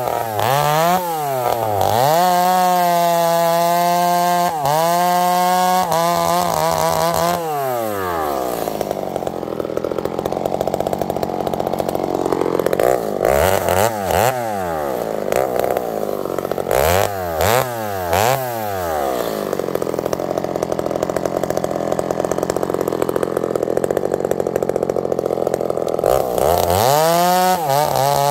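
Ported Husqvarna 266XP two-stroke chainsaw held at full throttle through a cut for about seven seconds, then dropping to idle. It is blipped a few times while idling, and revs back up to full throttle near the end as the next cut begins.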